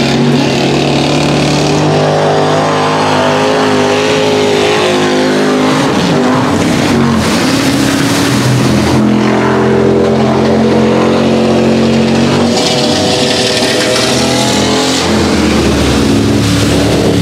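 Mud-racing pickup truck's engine running hard at high revs, its pitch repeatedly climbing and dropping as the throttle is worked, with a rush of mud and water spray from the tyres in the middle and again later.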